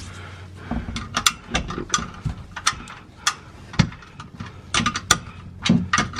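Socket ratchet clicking in short irregular runs as the oil sump drain plug is tightened.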